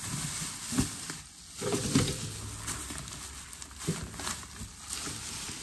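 Plastic shopping bag rustling and crinkling as it is handled and pulled open, with a few louder crackles.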